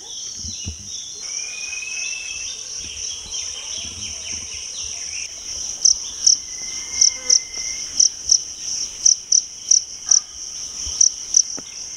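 Insects chirring in a steady high-pitched drone, which from about halfway through swells into a loud pulsing chirp about two to three times a second.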